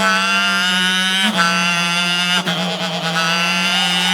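Man imitating a Formula 1 car engine with his voice: a loud, buzzy tone held at a steady high pitch, broken by short dips about a second and a quarter in and again about two and a half seconds in.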